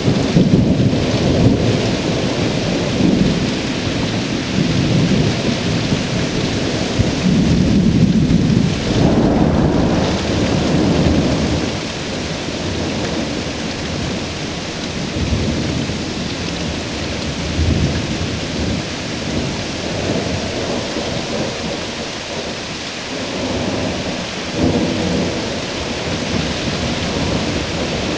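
Thunderstorm: thunder rumbling and rolling almost without pause over steady rain. The rumble is heaviest in the first ten seconds or so, then eases, with further swells later on.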